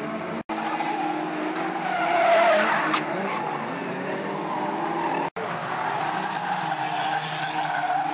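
Engines of Japanese banger race cars running and revving as they race, with tyres squealing and skidding, swelling loudest about two seconds in. A sharp knock about three seconds in, and the sound breaks off for an instant twice.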